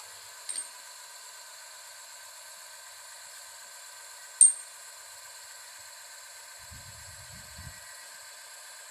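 Oil friction-test rig running steadily under extreme load, a hissing whine from the spinning shaft, with a single loud sharp metallic click about four and a half seconds in and a smaller one near the start.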